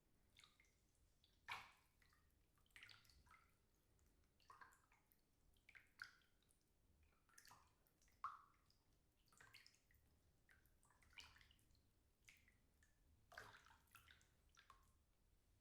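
Water moving in a bathtub: faint, short, irregular splashes and drips, roughly one a second.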